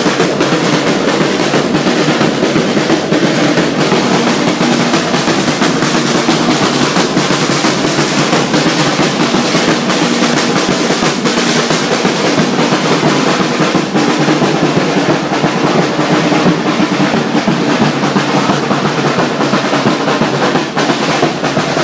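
Several snare drums played together in a fast, continuous roll-like beat that keeps going without a break.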